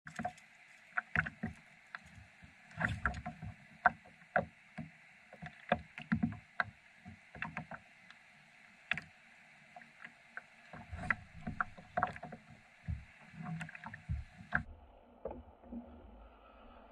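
Small waves lapping and slapping against a plastic sit-on-top kayak's hull, with irregular knocks and low thumps from the boat and gear.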